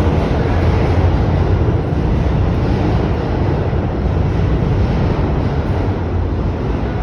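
New York City subway train rumbling through the station below, a loud, deep, steady rumble that eases off slightly toward the end.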